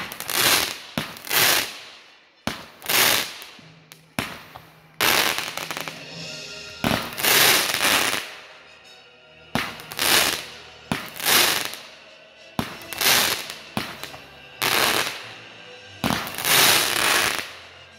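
Consumer fireworks firing in a steady series of shots, about one every second or so. Each is a sharp bang followed by a short rushing burst of hiss.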